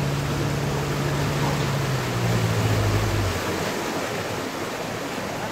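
A tour boat's motor running over a steady rushing noise; its low note drops about two seconds in and stops about three and a half seconds in, as the boat slows, leaving only the rushing noise.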